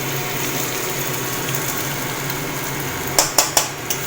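Hot ghee sizzling steadily in a cooking pot while ginger paste fries for polao. Three quick sharp knocks come a little after three seconds in.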